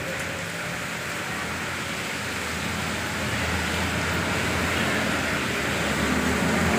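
Steady hiss of rain falling, with a low rumble that grows louder from about three seconds in.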